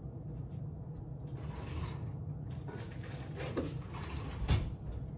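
Rustling and handling noises of clothes and bags being packed into a suitcase, in uneven bursts, with one sharp thump about four and a half seconds in, over a low steady hum.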